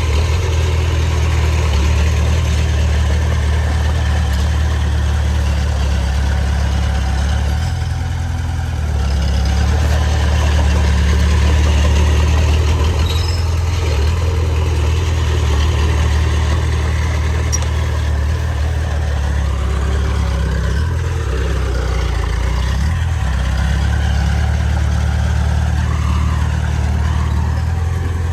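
Heavy diesel engine of earthmoving machinery running steadily and loud, its low drone shifting in pitch a couple of times as the load changes.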